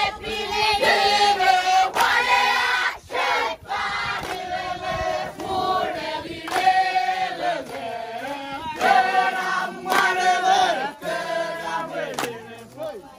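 A group of voices singing together, with short breaks between phrases.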